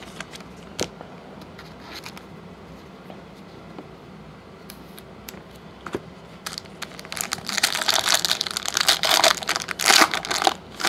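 Foil wrapper of a Topps Platinum football card pack being torn open and crinkled in the hands. It starts a bit past the middle and is loudest near the end, after a few faint clicks of cards and a plastic sleeve being handled.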